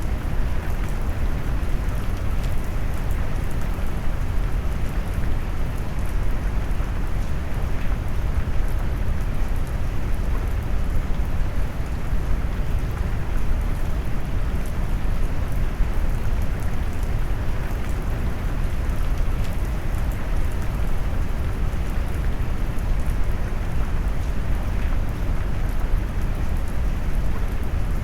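Steady rain mixed with deep brown noise, a dense hiss weighted toward a low rumble, with faint scattered drop ticks on top.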